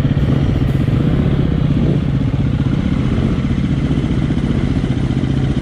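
Dirt bike engine idling close by, a steady fast putter with no change in revs.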